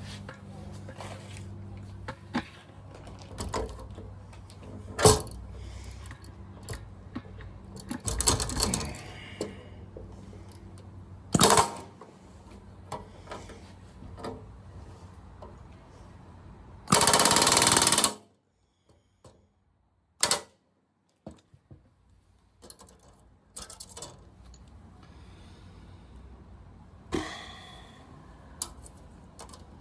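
Hand riveting work on a metal piece: scattered clicks and knocks of small metal parts and tools. A sharp hit comes about five seconds in and another a few seconds later. About halfway through, a tool runs in one loud, even burst lasting a little over a second.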